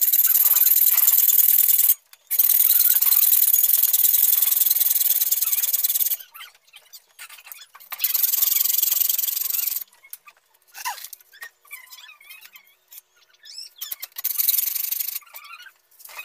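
A long metal rod worked by hand, scraping with a high, squealing rub in long strokes. The scraping runs almost steadily for the first few seconds, breaking off briefly about two seconds in. It then comes in shorter bursts, with light clicks between them.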